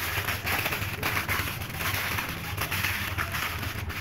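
Thin aluminium foil crinkling and crackling as hands fold and press it into a second layer around a food packet, in quick irregular crackles throughout.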